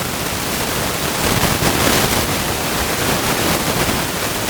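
Loud, steady hiss of static noise on the recording, the sound fault the title apologises for, with nothing else clearly heard over it.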